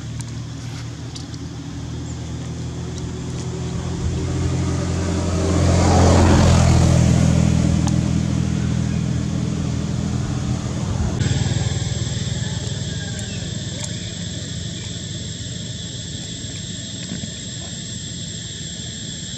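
A motor vehicle's engine passing by: a low hum that grows louder over the first few seconds, peaks about six seconds in, and fades away by about eleven seconds. After an abrupt change about eleven seconds in, a steady high-pitched tone continues over a fainter hum.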